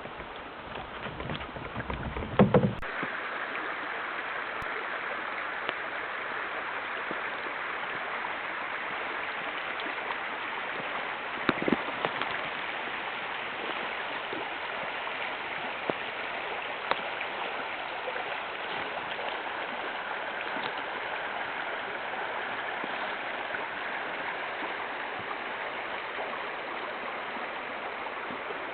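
Creek water running: a steady, even rushing hiss. It starts suddenly about three seconds in, after a few thumps and a low rumble, with an occasional faint click.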